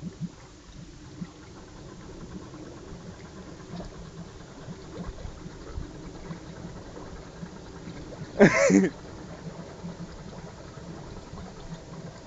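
Suzuki SJ413's 1.3-litre four-cylinder engine running low and steady as the 4x4 wades deep water. About two-thirds of the way through, a short exclamation from a person, rising then falling in pitch, is the loudest sound.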